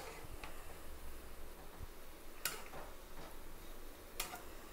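Ragi-and-spinach pakodis deep-frying in oil with a low, steady sizzle, and a metal spoon clicking against the metal pan four times as they are turned.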